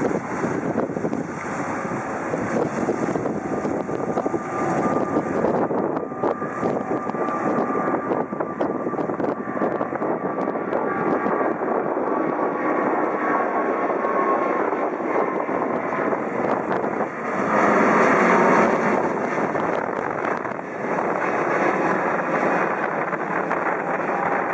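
Boeing 777's twin turbofan engines at takeoff thrust as the airliner climbs away: a loud, even jet noise, with a faint whistle that slowly falls in pitch partway through. The noise grows louder for a couple of seconds about three-quarters of the way in.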